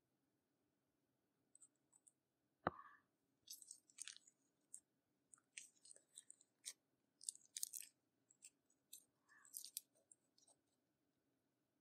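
Clear slime being squished and pressed by hand, giving a run of short, sticky wet crackles and clicks. About two and a half seconds in there is one sharp tap, the loudest sound.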